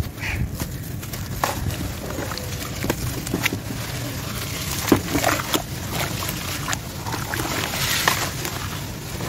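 Hands sloshing and squeezing wet, gritty sand-cement mud in a plastic tub of water, with irregular squelches, splashes and gritty crackles.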